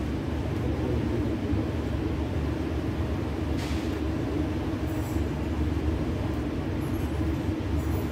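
A machine running steadily: a constant low hum and rumble that does not change.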